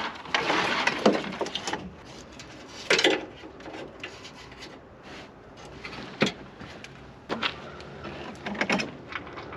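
Irregular clatter of hands handling parts: scattered sharp clicks and knocks with rustling between them, the loudest knocks about three and six seconds in.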